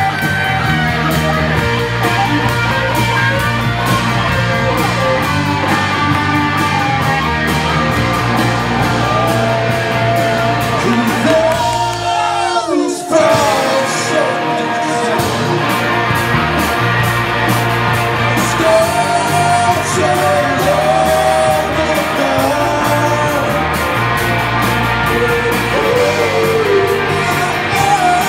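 Live rock band of electric guitars and drums with a singing vocal. About twelve seconds in the low end drops out for a moment under a falling glide in pitch, then the full band comes back in.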